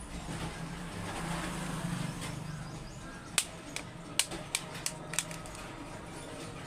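A low steady hum with a run of about six sharp clicks, roughly a third of a second apart, about halfway through.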